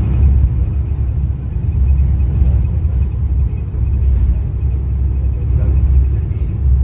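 Steady low road rumble of a moving vehicle heard from inside the cabin, with music underneath.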